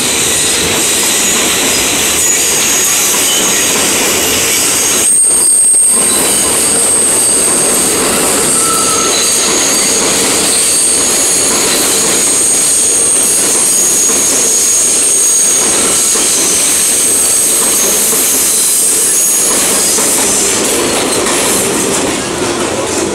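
A New York City subway train runs along an elevated steel structure overhead: the cars rumble steadily and the wheels give off a continuous high-pitched squeal. The sound dips briefly about five seconds in and fades near the end.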